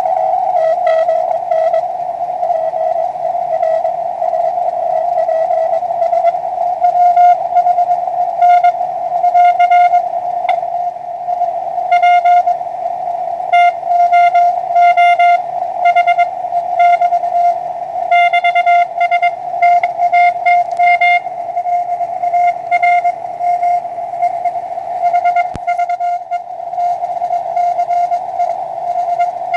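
Morse code (CW) on the 20 m band from the speaker of a homebrew SW20 QRP transceiver: a single mid-pitched tone keyed on and off in dots and dashes over steady receiver band hiss.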